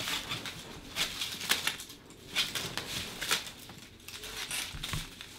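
Aluminium foil crinkling and crackling irregularly as it is crumpled and pressed around a person's head.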